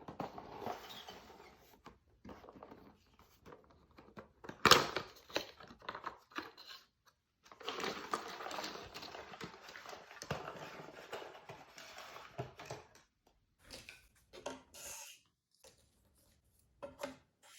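Close-miked handling of a jigsaw puzzle: rustling and crinkling with many light clicks of pieces, one sharp knock about five seconds in, and a longer run of dense rustling in the middle.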